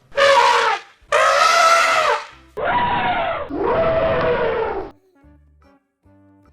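Cat meowing loudly: four drawn-out yowls in quick succession, each bending up and then falling in pitch. They stop about five seconds in, and faint background music follows.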